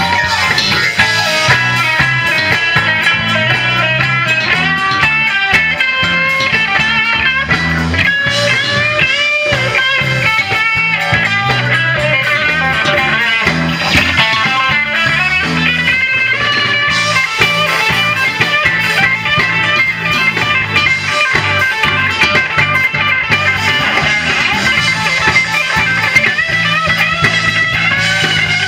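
Live blues band playing through the stage sound system: an electric guitar plays lead lines with bent notes over a moving bass line.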